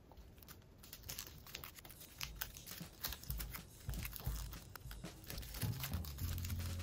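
Origami paper crinkling and crackling as fingers pull up and fold over the petals of a paper lotus, a run of small irregular crackles.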